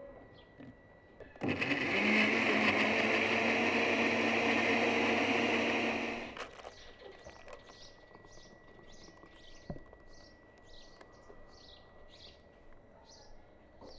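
Electric countertop blender running for about five seconds, blending berries and milk into a milkshake, then cutting off. Afterwards a bird chirps over and over, about twice a second.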